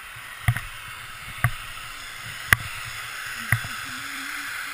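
Skis sliding downhill over packed snow with a steady hiss, broken by four sharp clicks about a second apart.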